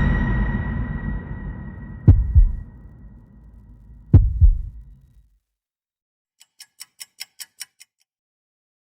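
Horror sound-effect track: the ringing tail of a deep cinematic impact fading out, with two heartbeat thumps about two seconds apart, each a double lub-dub beat. After a moment of silence comes a quick run of about eight short, high ticks, a little louder at first and then even.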